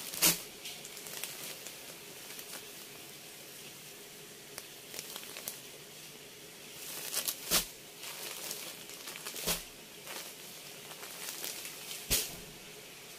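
Folded georgette sarees being handled and moved: soft rustling of the cloth with four short, sharp brushing sounds, one near the start and three in the second half.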